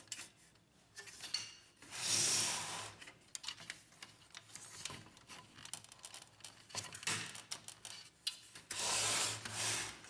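Plastic cover brackets of a laser printer being fitted into place: plastic rubbing and scraping on plastic, with scattered small clicks. There are two longer scrapes, one about two seconds in and one near the end.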